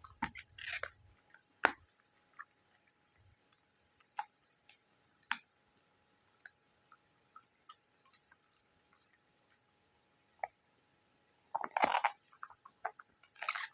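Dog chewing an oven-baked churpi, a hard yak-milk chew stick: scattered sharp crunches and clicks with pauses between, then a denser run of crunching near the end.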